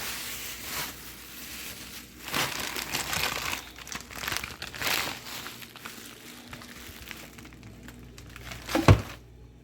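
Crinkling and rustling of plastic packaging being handled while clearing out a refrigerator, with a single loud knock near the end.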